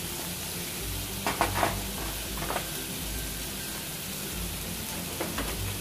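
Lemon-garlic butter sauce sizzling in an enamel saucepan on an electric coil burner with the heat turned down so it won't foam up: a steady hiss. A few light clicks about a second and a half in, again a second later and near the end.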